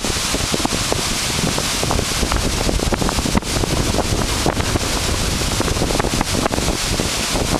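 Wind buffeting the microphone with a rough, crackling rumble, over a steady rush of floodwater flowing across a trail.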